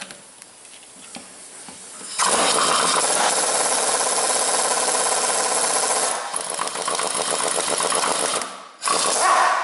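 Air impact wrench hammering on a tie rod end puller's screw for about six seconds, then a short second burst near the end, as the puller draws the wheel bearing off the front hub.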